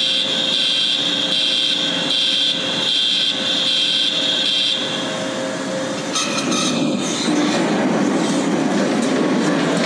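Shake-table test rig with a one-third-scale steel two-span bridge model. A high-pitched tone pulses on and off for the first five seconds. From about six seconds in there is a steady rattling, clattering rumble of the rig and structure being shaken.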